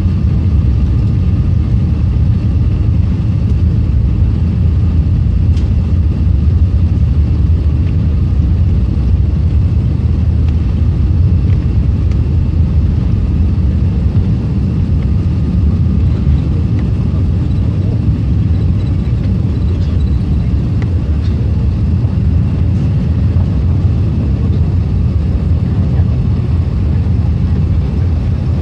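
Airbus A380 takeoff heard from inside the passenger cabin: a loud, steady deep rumble of its four engines at takeoff power through the takeoff roll and lift-off.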